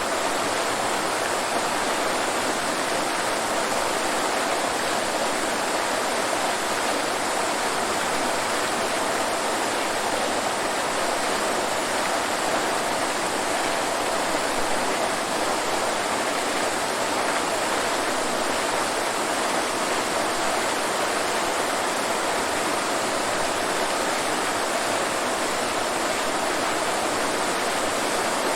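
Waterfall: falling water pouring and splashing in a steady, unbroken rush.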